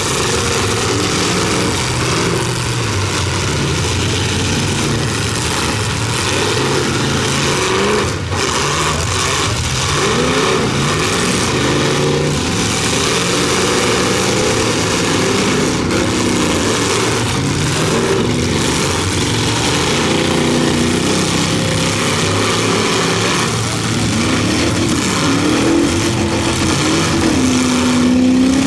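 Several big demolition-derby sedans' engines running and revving at once, their pitches rising and falling over one another.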